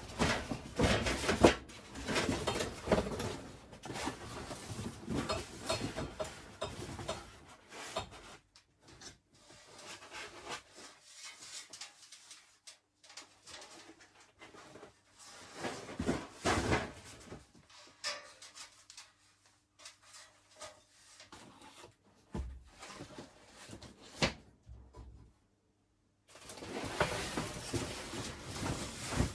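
Rummaging through a box and moving things about on shelves: items rustling, scraping, knocking and clunking. The handling is busiest in the first several seconds and near the end, with only scattered knocks in between.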